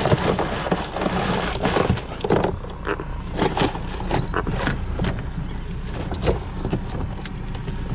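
Catch being emptied from a shrimp trawl net's bag into a bucket: water draining and splashing for about the first two seconds, then a scatter of wet clicks and knocks as the shrimp and small fish shift and settle.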